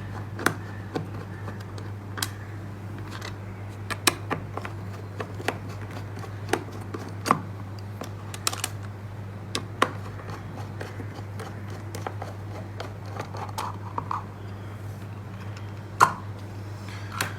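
Small plastic instrument case of a weight transmitter being handled and opened by hand: irregular sharp clicks and taps, over a steady low hum.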